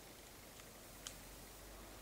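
Near silence with one short sharp tap about a second in: a black woodpecker's single peck at a tree trunk while foraging.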